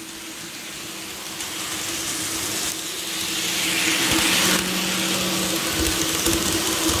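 Atlas N scale EMD GP30 model locomotive and its freight cars running on the track: a steady mechanical whirr with a low hum, growing louder as the train comes closer.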